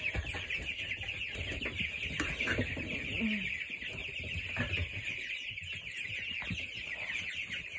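A brooder full of young chicks, Isa Brown pullets among broiler chicks, peeping all at once: a very noisy, steady chatter of many short, high, overlapping chirps. There is a single sharp click about six seconds in.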